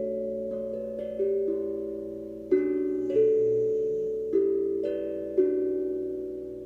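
Steel tongue drum played slowly, single struck notes ringing on and overlapping one another in a gentle melody. A bulldog snores faintly a little past halfway.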